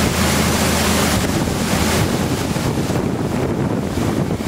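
Wind buffeting the microphone on a moving boat, over the steady low hum of the boat's engine and the rush of water from its wake. The wind noise eases a little near the end.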